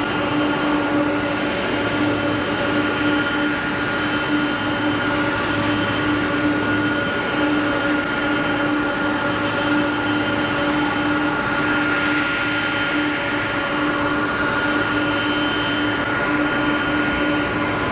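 Boeing 787-9's twin turbofan engines at takeoff thrust during the takeoff roll, lift-off and climb-out. A steady jet roar with a high whine held above it, the whine sinking slightly in pitch in the second half.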